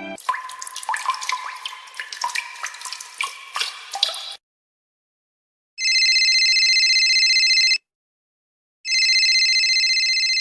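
Water drops plinking and bubbling in quick, uneven succession for about four seconds. After a short silence, a telephone rings twice with a fast high trill.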